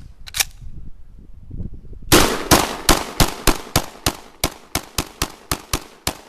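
Century Arms PAP M92 (Zastava M92) AK-pattern pistol in 7.62x39mm firing semi-automatic, a rapid string of about fourteen shots at roughly three a second starting about two seconds in. Two sharp clicks come in the first half second.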